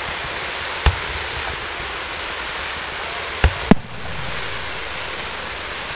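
Fireworks display: a steady rushing hiss under four sharp bangs, one about a second in, two close together just past the middle, and one at the very end.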